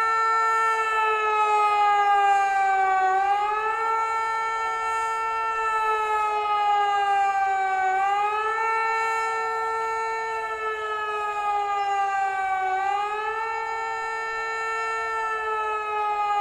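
Hörmann HLS 273 pneumatic high-performance civil-defence siren sounding the German 'Warnung der Bevölkerung' (public warning) signal: a loud, many-toned howl that rises quickly, then sinks slowly, three times, one cycle about every five seconds.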